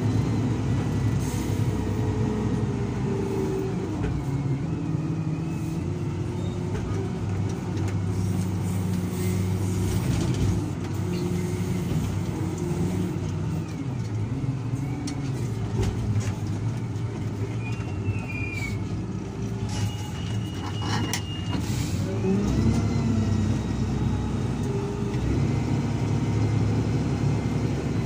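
SDLG wheel loader's diesel engine running under load while digging and lifting soil, its pitch rising and falling several times as the engine revs up and eases off.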